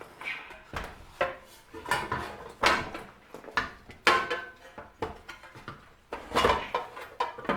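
Metal parts of a Shopsmith being handled and taken apart: a series of clanks, knocks and rattles, loudest about four seconds in and again near the end.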